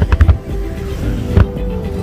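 Fireworks show with music playing, a low rumble throughout, and loud firework bangs: a quick cluster of three or four right at the start and another about a second and a half in.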